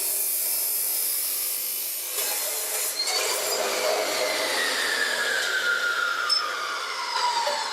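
Metal-cutting chop saw cutting through a steel brace with a hissing grind, then, about three seconds in, the blade's whine falls steadily in pitch as the saw spins down after the cut.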